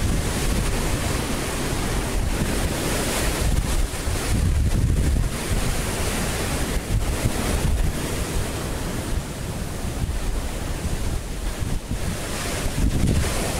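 Wind buffeting the microphone in uneven gusts over the continuous wash of ocean surf.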